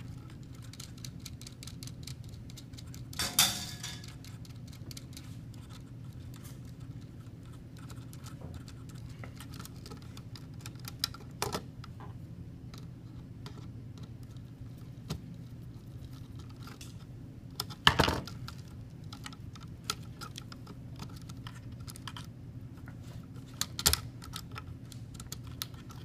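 Small clicks and rattles of hands handling stiff copper wires and a plastic wiring device against a metal electrical box, with four louder knocks spread through. A steady low hum runs underneath.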